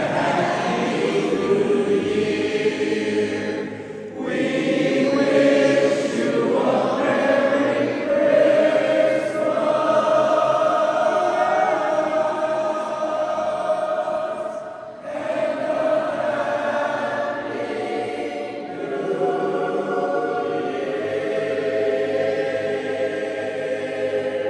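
Barbershop chorus singing a cappella in close harmony: long held chords in phrases, with short breaths between them about 4 and 15 seconds in.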